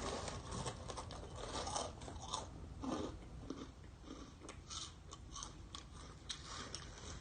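A person chewing crunchy Hot Cheetos, with irregular crunches several times a second.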